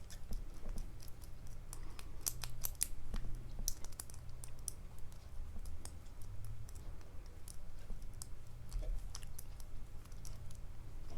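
Lock pick and tension wrench working the pins of a MAKO SFIC lock core: faint, irregular small metallic clicks and scrapes.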